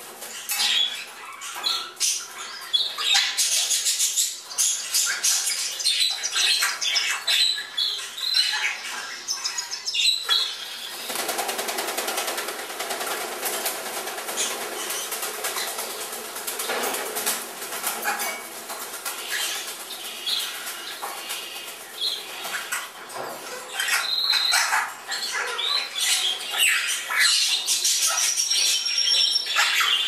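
Fledgling Congo and Timneh African grey parrots flapping their wings in flight, with scattered squawks and chirps from the birds. The calls are thickest in the first third and near the end, while a steadier rush of sound takes over through the middle.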